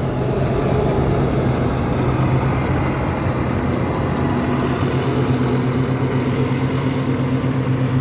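Deutz-Fahr M 3580 combine harvester running close by, its engine a loud steady hum with a higher tone joining about halfway through.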